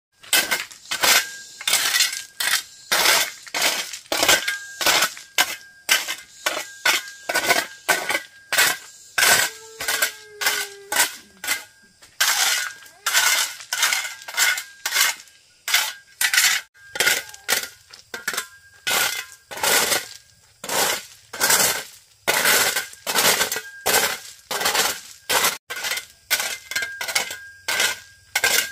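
Repeated sharp clinking knocks, about two a second, keeping up an even rhythm, with a faint steady high tone behind them.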